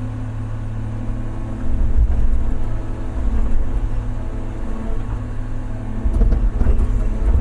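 Large excavator's diesel engine working at full power, a steady heavy drone that grows louder about one and a half seconds in and again near the end.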